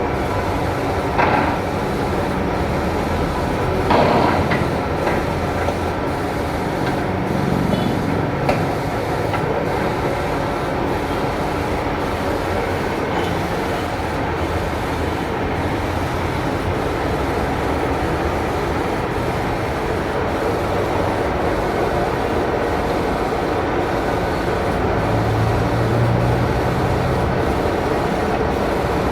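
Steady mechanical running noise, with a few sharp metal clanks in the first nine seconds or so.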